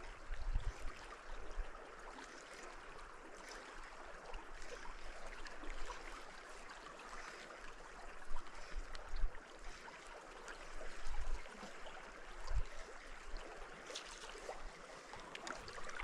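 River water flowing, a steady soft rushing, with a few brief low bumps now and then.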